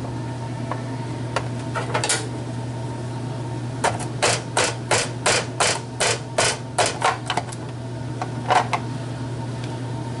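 A quick run of about a dozen sharp plastic clacks, three or four a second, then one more, as a plastic cleaning tool is poked through the grid blade of a vegetable chopper to clear out chopped jalapeño. A steady low hum runs underneath.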